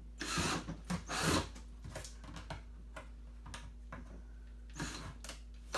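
Hand rubbing and brushing across the bottom of an upturned plastic 5-gallon bucket, clearing plastic shavings and burrs from freshly drilled holes: short scraping rushes, two in the first second and a half and another near the end, with scattered light clicks.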